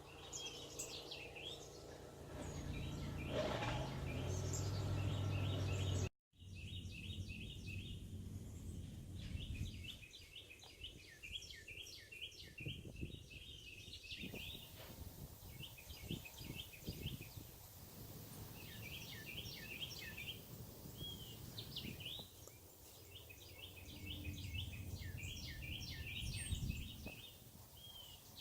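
Songbirds chirping and singing in rapid runs of short, high notes, on and off throughout. A low rumble underlies the first six seconds. The sound drops out completely for a moment about six seconds in.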